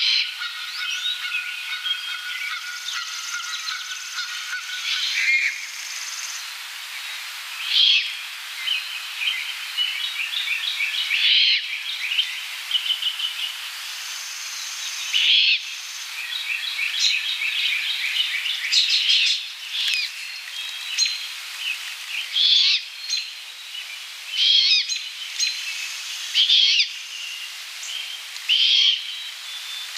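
Great horned owl fledgling giving raspy, hissing begging screeches, about a dozen short calls, one every two to four seconds. Other birds chirp and whistle steadily behind them.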